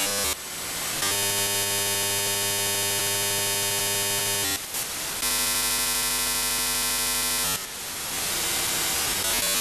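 Software-defined radio's upper-sideband audio tuned across Inmarsat L-band satellite downlink signals. A noisy hiss alternates with steady, buzzing stacks of tones from digital data carriers. The sound changes abruptly about a second in, again around four and a half seconds, and near seven and a half seconds, where it falls back to hiss.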